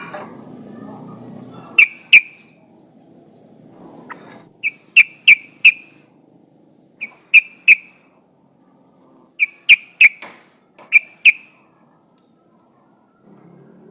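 Yellow-vented bulbul (trucukan) calling: short, sharp whistled chirps in quick clusters of two to four, repeated about five times with pauses between. Offered as a female's call to lure males.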